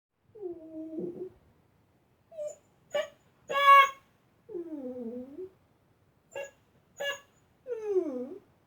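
Old dog squeaking and whimpering in a string of about eight high, whiny calls, some short and some drawn out with a falling or dipping pitch. The loudest, shrillest squeak comes a little before the middle.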